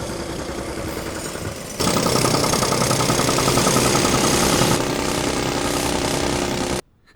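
Loud, rapid mechanical pounding heard as noise from another floor of an apartment building, like a jackhammer or engine. It jumps louder about two seconds in and cuts off suddenly near the end.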